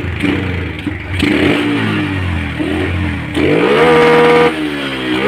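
Yamaha Jupiter MX carbureted single-cylinder four-stroke engine on its stock original Yamaha CDI, blipped a few times and then revved hard to a flat, held pitch about four seconds in, dropping back and climbing to the same ceiling again near the end. The flat ceiling is the stock CDI's rev limiter, which this unit reaches very quickly.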